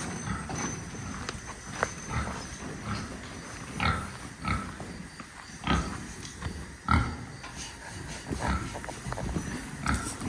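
Pigs grunting: a series of short grunts at irregular intervals.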